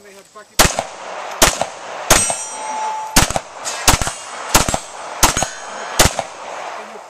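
Semi-automatic handgun firing a string of about eight shots, roughly one every 0.7 seconds, with short metallic rings from steel targets being hit after some of the shots.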